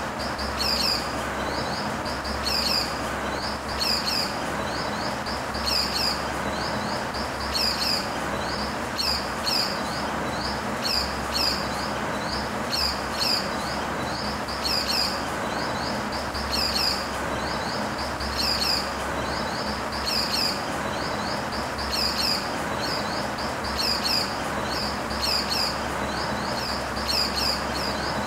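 Pied falconets calling: short, high-pitched series of quick notes, repeated every second or two over a steady background hiss.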